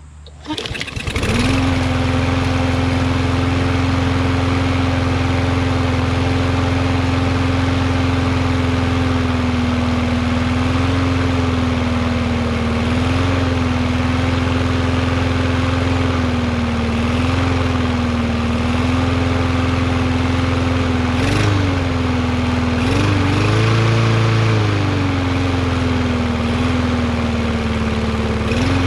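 Briggs & Stratton 550EX engine on a Yard Machines 21-inch push mower, pull-started and catching within about a second, then running steadily at governed speed after its governor tension spring was bent to raise the RPM. Engine speed wavers a little and rises briefly about three quarters of the way through.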